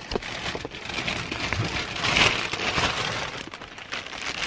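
Plastic bag rustling and crinkling as a hand rummages through it, loudest about two seconds in.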